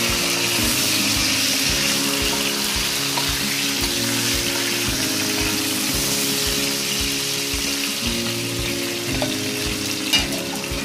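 Thin beef slices sizzling steadily in hot oil with garlic in a nonstick wok as they are stirred with a wooden spatula, over soft acoustic guitar background music. A single sharp knock near the end.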